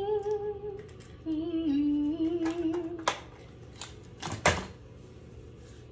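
A woman hums a few held, wavering notes. Then come several sharp clicks and taps as plastic nail tips and their case are handled; the loudest click is about four and a half seconds in.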